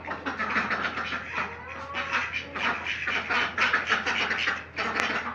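A flock of chickens and ducks calling, a busy, continuous chatter of clucks and raspy quacks.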